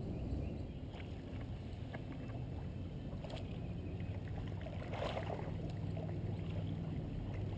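Steady low rumble of wind on a small action camera's microphone and water around a kayak, with a short splash about five seconds in.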